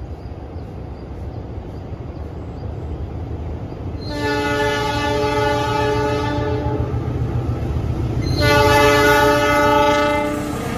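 CC 206 diesel-electric locomotive approaching with its engine rumbling louder, then sounding two long horn blasts as the semboyan 35 warning signal: the first about four seconds in, lasting about three seconds, and the second, louder, a little over a second later.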